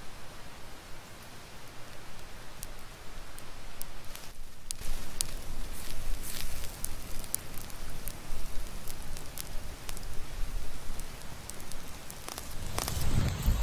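Wood campfire crackling, with frequent sharp pops and snaps from the burning logs over a steady hiss.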